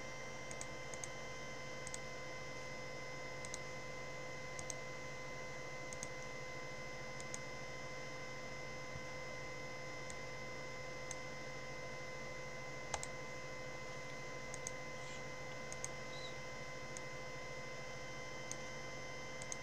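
Sparse clicks from working a computer mouse, some in quick pairs, every second or two, over a steady electrical hum with several high steady tones.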